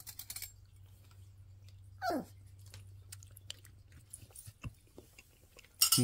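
Metal spoons clinking into a glass at the start, then a short falling, whine-like vocal sound about two seconds in and a louder falling vocal sound at the end, over a low steady hum. A few small ticks fall in between.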